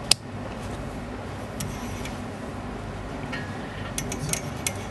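Rotary selector switch of a Pro'sKit MT-1210 digital multimeter clicking into its DC voltage setting: one sharp click just after the start, then a couple of faint clicks. A quick run of about five clicks follows near the end.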